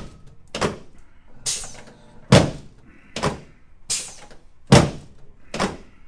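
Chiropractic adjustment on a padded adjusting table: seven sharp thunks, a little under a second apart, as hands thrust down on the back of a patient lying face down.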